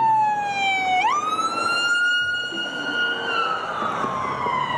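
A police siren wailing in one slow cycle. Its pitch falls, sweeps quickly up about a second in, holds high, then falls slowly again from about three seconds in.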